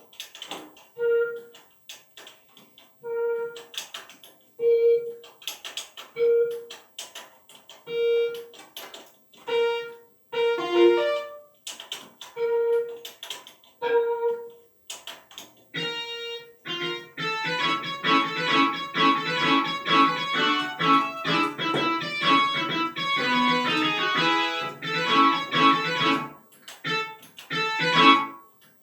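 Electronic piano music: single notes struck about every second and a half, then from about halfway through a fuller, dense passage of many notes and chords.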